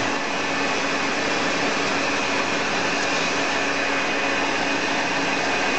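Hand-held hair dryer running steadily: an even rush of blown air with a faint constant hum.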